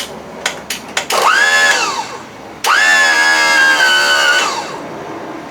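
A few sharp clicks, then the 55 hp Evinrude outboard's electric starter motor whines as it spins up twice, a short burst and then a longer run that winds down. It spins free without engaging the flywheel, which the owner puts down to the starter turning backwards.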